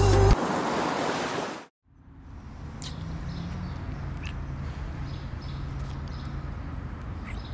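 The theme music ends and its tail fades out to a moment of silence. Then a steady low background rumble comes up, with a few soft, short lip smacks from two people kissing.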